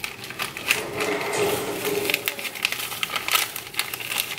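Paper packet crackling and rustling as it is torn open and handled by hand, a run of irregular clicks and crinkles.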